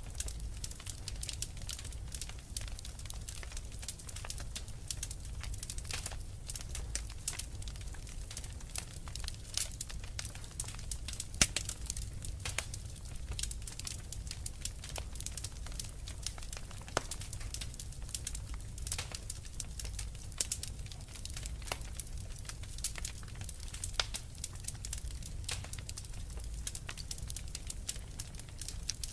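Fireplace fire crackling: a steady, uneven stream of sharp pops and snaps over a low rumble, with one louder pop about eleven seconds in.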